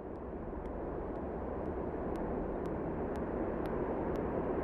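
A steady rushing noise swells up from silence, with faint high ticks about twice a second.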